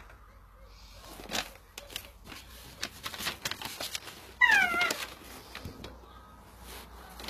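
A single short high cry that falls in pitch, about half a second long, with light rustling and clicks before it.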